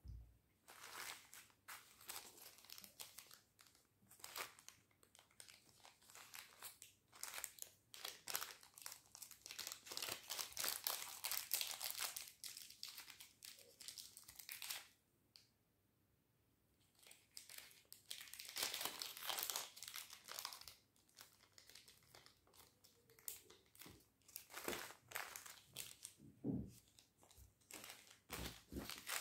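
Small clear plastic bags of beads and jewellery findings crinkling as they are handled and opened, in irregular bursts with a quiet pause about halfway through.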